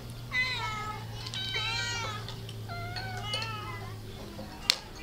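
A cat meowing repeatedly, about four drawn-out calls that fall in pitch, some overlapping, over a steady low hum that fades about four seconds in. A single sharp click comes near the end.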